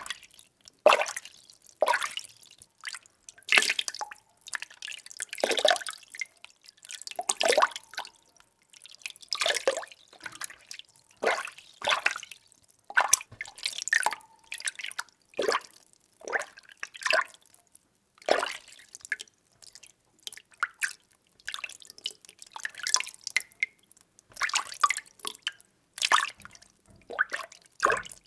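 Water being stirred by hand in a container: a series of short swishing splashes, roughly one a second, with brief pauses between.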